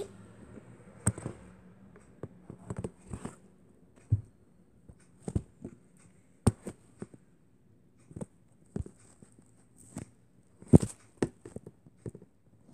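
Handling noise from a camera being moved and propped up at floor level: a dozen or so scattered knocks and taps with soft rustling between them.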